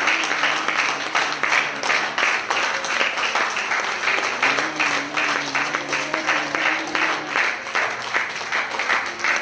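Congregation clapping in praise, a quick, even rhythm of about three to four claps a second.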